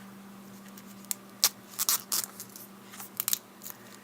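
Old foam adhesive tape being picked and peeled off by hand from inside a GPS unit: a scattered series of short scratchy clicks and scrapes over a faint steady hum.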